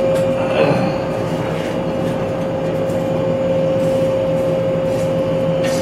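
Electric blower fan running steadily, a constant whine over a rush of air, while a scarf weld heats in a coal forge fire.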